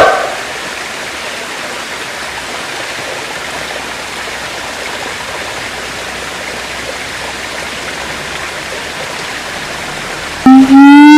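A steady rushing hiss for most of the stretch, then about ten seconds in a siamang breaks in with a loud call: one held note that rises slightly in pitch, rich in overtones.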